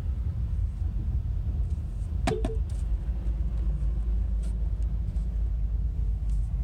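Vehicle driving, with a steady low engine and road rumble and one brief sharp squeak a little over two seconds in.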